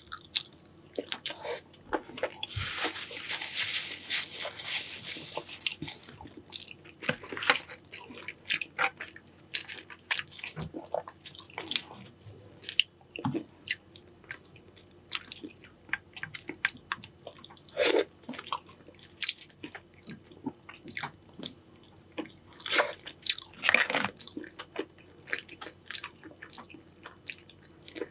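Close-miked eating of a seafood boil in Cajun sauce: biting and chewing with crunchy bites and many small clicks and smacks, and a stretch of crackling hiss a few seconds in.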